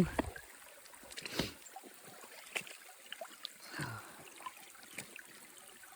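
Rubber boots stepping through a shallow, icy creek: scattered soft splashes and crunches a second or so apart, over a faint trickle of running water.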